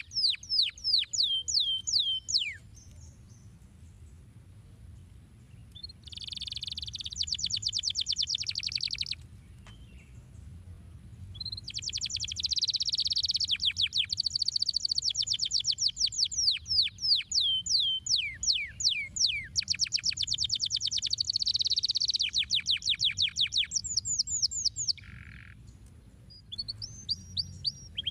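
Domestic canary singing: rapid trills of quickly repeated falling notes in several phrases, broken by short pauses, the longest phrase lasting over ten seconds.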